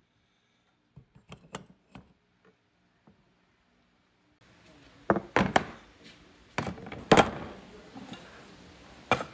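Rusty metal parts of an electric air blower motor (rotor, fan, end cover) being handled and set down in a metal tray. There are a few light knocks at first, then several loud metal clanks and clunks in the second half.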